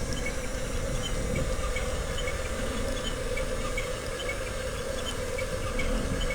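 Small electric motors of an RC toy excavator running steadily, with faint squeaks repeating at a regular pace.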